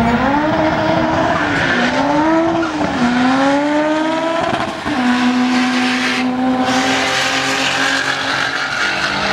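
Audi saloon's engine at full throttle on a drag-strip run: the note climbs, drops at each upshift about three times, then holds steady at high revs.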